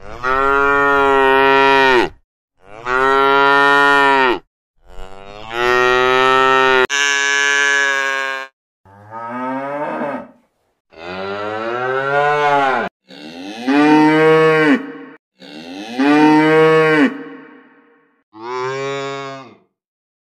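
Cattle mooing: about nine long moos one after another, each a second or two, many sliding down in pitch at the end, with short silent gaps between them.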